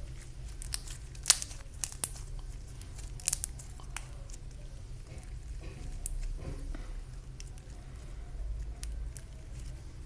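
Homemade glue-and-shaving-cream slime being handled, squeezed and pulled apart by hand, with faint crackling and scattered sharp clicks, the loudest about a second and two seconds in.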